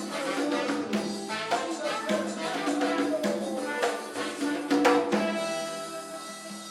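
Cumbia band playing an instrumental passage with a steady percussion beat and bass. A final accented hit comes about five seconds in, then the last chord rings and fades out.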